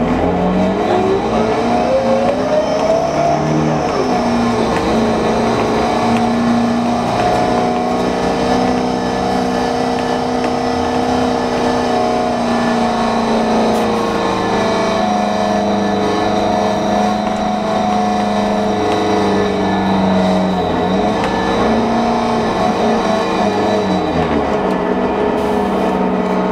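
Transit bus drivetrain whine with several pitches at once. It rises in pitch as the bus pulls away over the first few seconds, then holds steady while cruising. It drops about twenty seconds in and climbs again near the end. This whine is the weird sound the bus is noted for.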